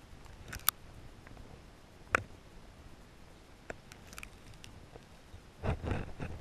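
Clicks and knocks heard through an underwater camera among stones: a few single sharp clicks spread apart, then a rougher scraping rumble starting about five and a half seconds in.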